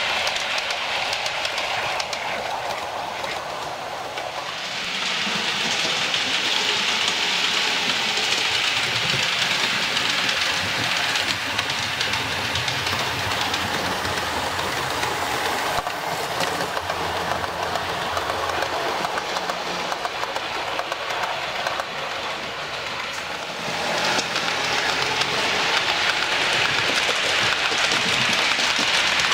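Model trains running on a layout: a steady rumble and clatter of wheels over the rail joints, which eases off briefly and grows louder again as trains pass close, about five seconds in and near the end.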